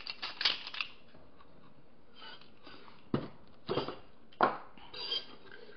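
Kitchen utensils being handled: a set of measuring spoons clicking and rustling, then three sharp knocks a little past halfway and a faint clink near the end as things are set down on the counter.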